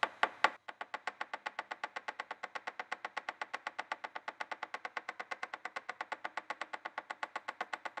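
The end of a screwdriver tapping rapidly and evenly on a throttle position sensor, about nine light taps a second. The tapping simulates engine vibration while the throttle closes, to check that the sensor's voltage signal stays steady.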